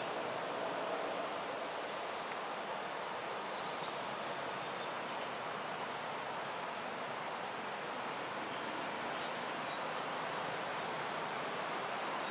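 Steady chorus of insects: a continuous high-pitched hum that does not change, over an even background hiss.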